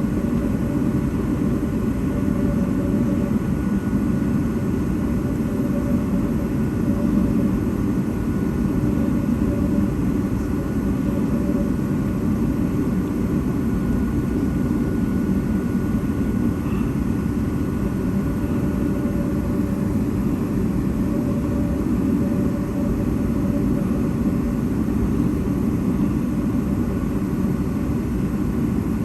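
Cabin noise of a Boeing 757-232 with Pratt & Whitney PW2000 engines: a steady, even engine and airflow drone, heaviest in the low range, with faint constant whining tones over it.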